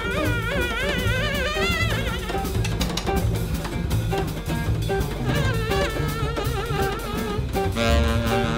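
Jazz quartet playing live: a saxophone plays wavering, trilling phrases over a busy drum kit, with double bass and archtop guitar. Near the end a long held note comes in.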